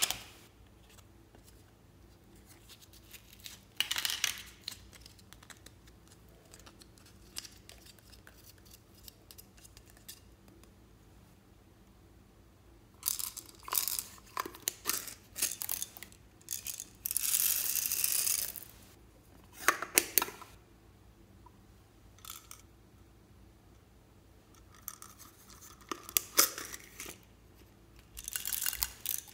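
Hard plastic toy containers clicking and twisting open, and small slime toppings (beads, foam pieces) rattling out of them onto slime in a plastic tray. The loudest part is a rustling shake-out of pieces lasting over a second, about two-thirds of the way through.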